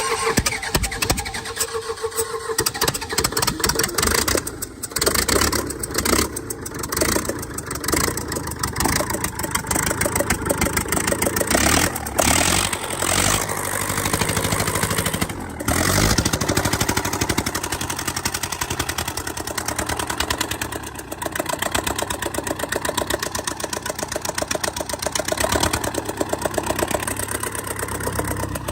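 A freshly restored engine being started: it catches and runs unevenly with its speed rising and falling, then settles into a steadier run.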